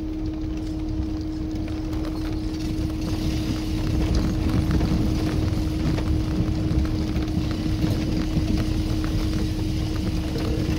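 Tofaş Kartal car heard from inside its cabin while driving over a rough dirt track: steady engine and road rumble with rattles and small knocks from the body and stones, under a constant low hum.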